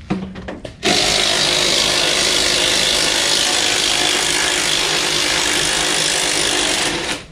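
Makita impact driver running on an old original shock-absorber nut: a short burst, then about six seconds of steady, really loud impact hammering that stops just before the end.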